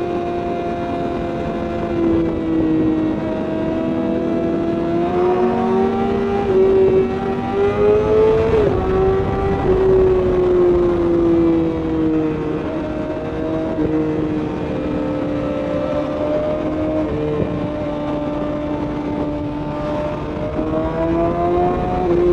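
Sport bike's inline-four engine heard from the bike while riding, its note rising and falling with the throttle, with wind noise underneath. It climbs to a peak about eight and a half seconds in, drops off sharply, and climbs again near the end.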